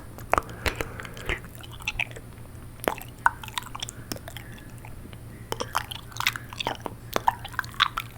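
Wet ASMR mouth sounds made close to a microphone: irregular tongue clicks and lip smacks with water in the mouth, sparser in the middle and coming thick and fast over the last few seconds.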